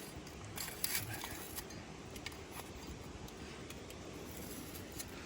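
A few light clicks and clinks of small objects being handled, most of them in the first second, then only scattered faint ticks over a quiet background hiss.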